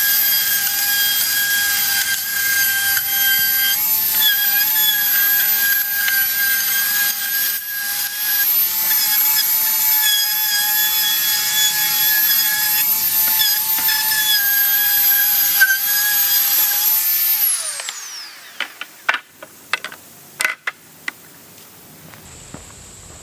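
Handheld Ryobi router running at a steady high whine while edging a white oak deck board. About three-quarters of the way through it is switched off and winds down in pitch, followed by a few sharp knocks and clicks of handling.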